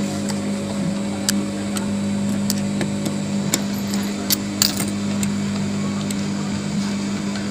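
Screwdriver clicking and scraping against the steel screws of a high-speed sewing machine's rotary hook as they are tightened, a dozen or so sharp ticks, over a steady low electric hum.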